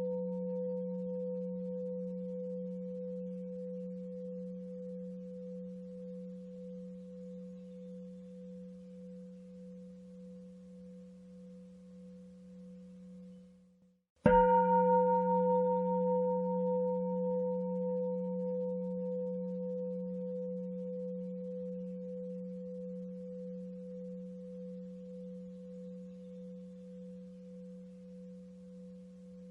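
A Buddhist bell ringing out and slowly fading with a gentle wavering pulse. It is hushed just before the middle, then struck once more about fourteen seconds in and left to ring and fade again.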